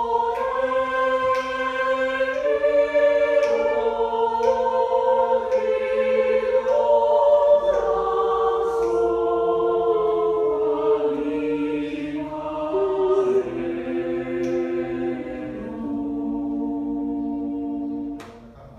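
A choir singing slow, sustained notes that step from one pitch to the next, closing on a long held note that cuts off near the end.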